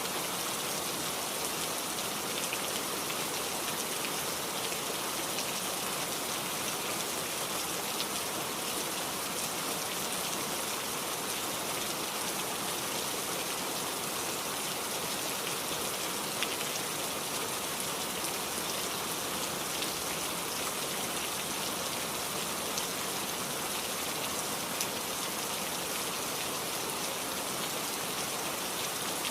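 Heavy rain falling steadily, an even hiss with a few louder single drop taps scattered through it.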